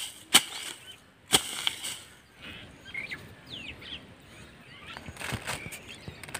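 A short-handled hoe blade chopping into damp soil, two sharp strikes about a second apart, while digging for earthworms. Faint bird chirps follow.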